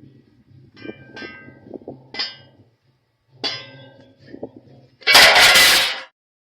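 Several ringing metallic clanks from steel being knocked during work on a semi-trailer's steel frame, then, about five seconds in, a loud rushing noise lasting about a second.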